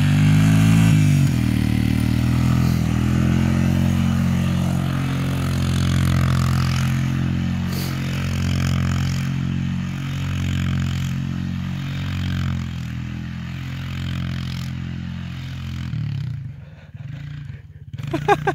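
ATV engine running hard as the quad spins donuts on snow: the note climbs in the first second, holds high and steady, then falls away about two seconds before the end as the machine backs off.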